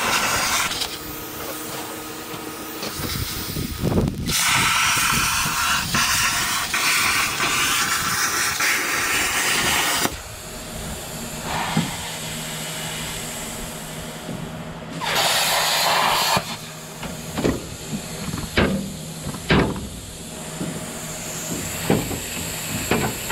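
Plasma cutter ripping down a steel plate, cutting in several long runs with short stops between them. A steady low hum sits underneath from the middle on, and several sharp knocks come near the end.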